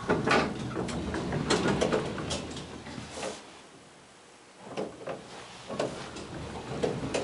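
Hydraulic elevator's sliding doors opening at a landing: a clunk, then about three seconds of rattling, rumbling door travel. After a short lull, a few separate knocks and clicks follow.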